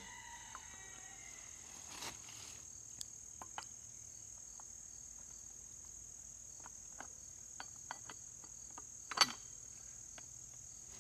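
Steady high chirring of crickets, with scattered light clicks of the shotgun being put back together and one sharper click about nine seconds in.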